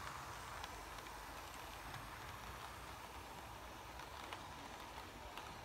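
Model freight train rolling past on the layout track: a steady hum and rumble from the locomotive motors and wheels, with a few light clicks.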